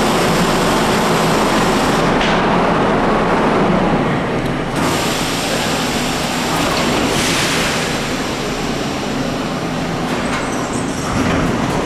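R32 subway train standing at a station platform: a steady hum and rush of noise from the idling cars, with a burst of hiss about seven seconds in as the doors close. The sound grows a little louder near the end.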